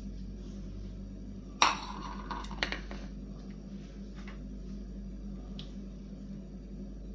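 Kitchenware clattering: one sharp ringing clink about one and a half seconds in, then a few lighter knocks and clicks, over a steady low hum.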